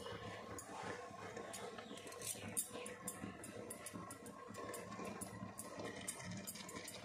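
Spoon scraping and tapping against a bowl as boiled rice is spooned out and scattered over mutton gravy in a kadai: faint, irregular light clicks and soft scrapes.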